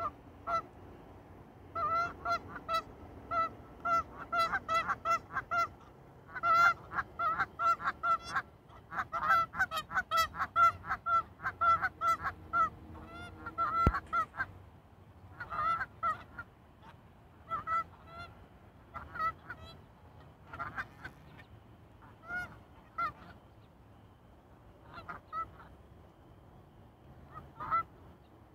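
Canada geese honking over and over, a fast run of honks for the first half that thins to scattered honks later on, with a single sharp click about halfway through.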